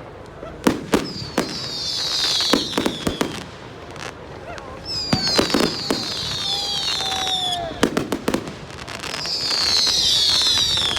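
Fireworks going off: clusters of sharp bangs, three rounds in a row, each joined by a long high whistle that falls in pitch.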